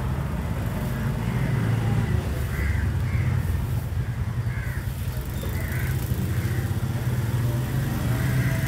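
Crows cawing repeatedly in short calls over a steady low engine hum.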